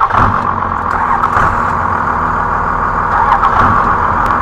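Heavy machine's diesel engine running loud and steady, with a few light clicks and knocks over it.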